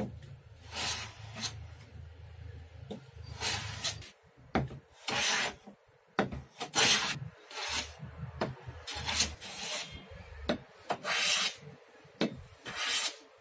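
Hand plane shaving a wooden board in repeated short strokes, about a dozen of them at roughly one a second, each a brief scraping swish of the blade cutting wood.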